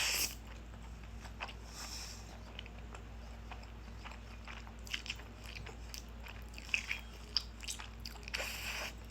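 A person chewing a mouthful of instant spaghetti close to the microphone, with scattered wet mouth clicks and smacks and a louder noisy moment near the end.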